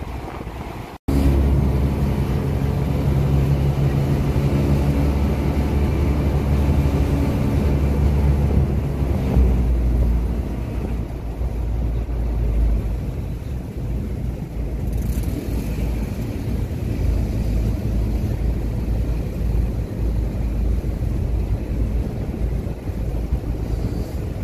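River ferry's engine running with a steady low hum and wind buffeting the microphone. After a brief dropout about a second in, the hum is strongest, then after about ten seconds its tone fades into a broader low rumble.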